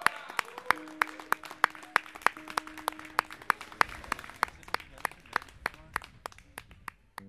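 Tail of a live band piece: sharp, evenly spaced clicks about three a second over a briefly held low note, the clicks growing fainter near the end.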